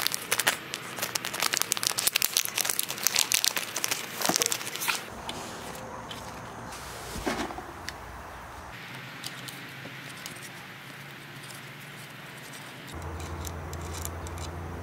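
Clear plastic packaging crinkling and crackling as it is handled, for about the first five seconds. After that, only faint small clicks of handling, and a low steady hum comes in near the end.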